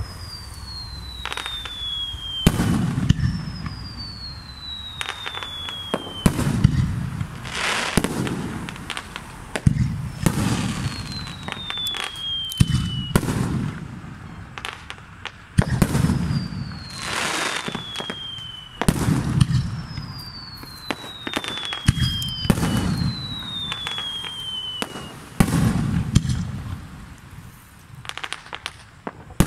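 Fireworks display: aerial shells going off one after another, sharp bangs every few seconds, each trailed by an echoing low rumble. Six whistles are heard along the way, each falling steadily in pitch over two to three seconds.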